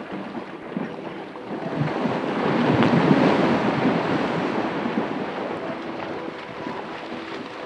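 A rushing, wind-like noise swells about two seconds in, peaks around three seconds and slowly dies away.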